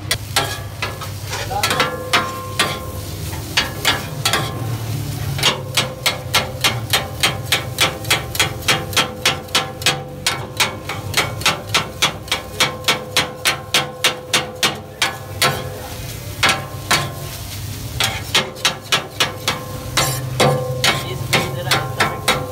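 A metal utensil striking a flat metal cooking surface in long runs of rapid chopping strikes, about four a second, each strike giving a short metallic ring, with brief pauses between runs.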